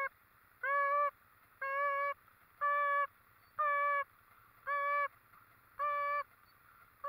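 A horn beeping in an even rhythm, about once a second, each beep about half a second long and steady in pitch.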